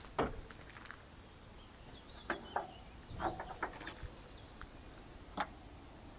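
Scattered sharp knocks and clicks over faint background hiss: a strong knock just after the start, a cluster of clicks and knocks in the middle, and one more near the end.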